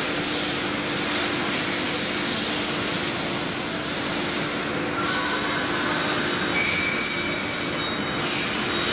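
Chencan CC-MS2030AC CNC router with a linear tool changer running: a steady hiss with a low hum, joined in the second half by thin high whining tones that come and go.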